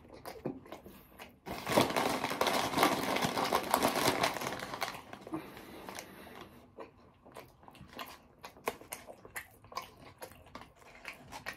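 Close-up crunching and chewing of crunchy food, loudest from about two seconds in for a few seconds, then quieter chewing clicks.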